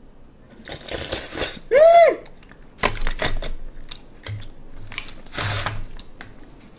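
Table handling sounds: paper tissue rustling and light clicks of oyster shells and dishes. About two seconds in comes a short hummed vocal sound that rises and falls, the loudest sound here.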